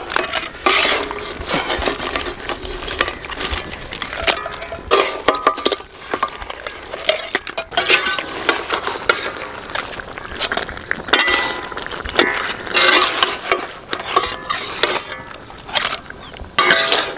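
Metal ladle scraping and clinking against an iron kadai as thick crab masala gravy is scooped up and poured over the crabs, in irregular knocks and scrapes, some with a brief metallic ring.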